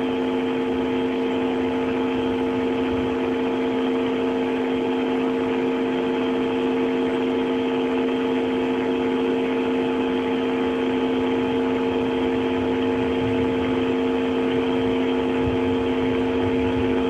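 A steady hum of several unchanging tones over an even hiss, with no change in pitch or level.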